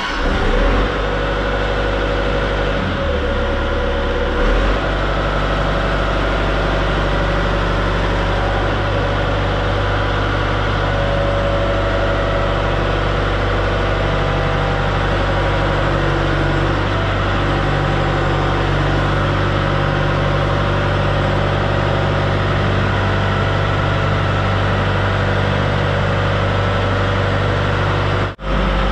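The 120 excavator's diesel engine running steadily at working throttle as the machine tracks out on its freshly rebuilt final drive, with a dense mechanical clatter over the engine note. The sound cuts out for an instant near the end.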